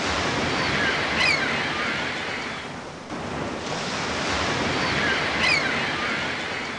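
Ocean surf washing on a shore: two swells of rushing water about four seconds apart, with a few high, falling cries over each swell.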